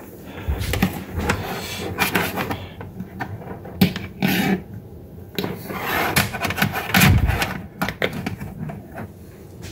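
Handling noise of power cords being dragged and rubbed, with irregular knocks and clicks as an electrical plug is pulled and moved to another outlet; the loudest knocks come about four seconds in and again around seven seconds.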